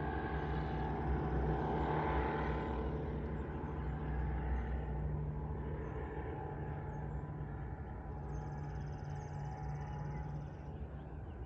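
Distant steady drone of a Kitfox light aircraft's engine and propeller, slowly fading as the plane flies farther off.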